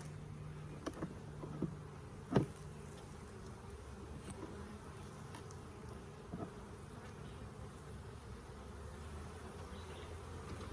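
Honeybees buzzing steadily around an opened hive, with a few sharp clicks and knocks from work at the hive, the loudest about two seconds in.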